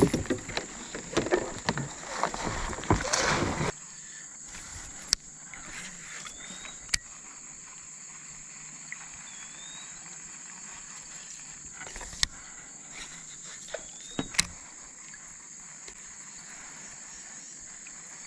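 A kayak being dragged through shallow creek water, with splashing and sloshing, for the first few seconds; it stops abruptly. After that a steady high insect drone continues, broken by a few sharp clicks and short chirps.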